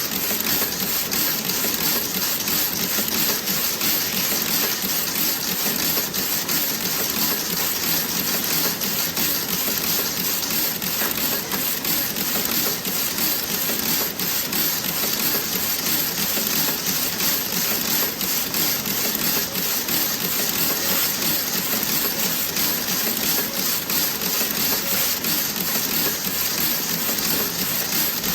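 Toe-sock knitting machine running: a dense, steady clatter of rapid metallic ticks.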